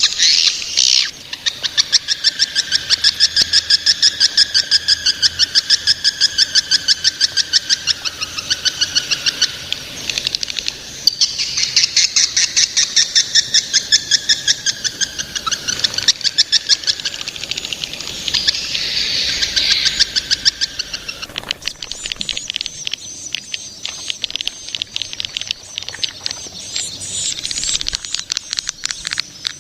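Edible-nest swiftlets twittering in rapid, evenly pulsed chirping trills of many notes a second. About two-thirds of the way through, the calls change to a denser, higher, faster chatter.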